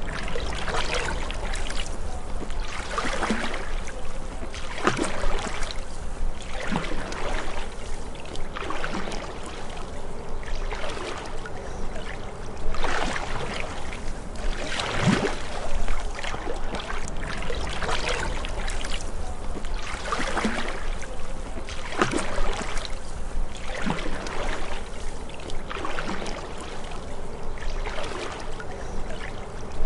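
Canoe paddle strokes in the water, a splash and swish about every two seconds, with water trickling and dripping between strokes.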